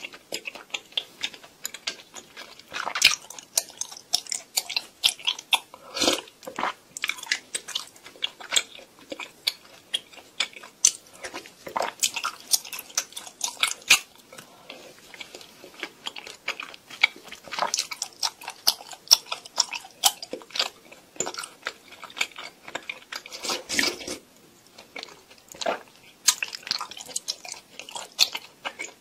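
Close-miked chewing of chewy tapioca pearls (boba) from bubble milk tea: many quick, irregular mouth clicks and smacks.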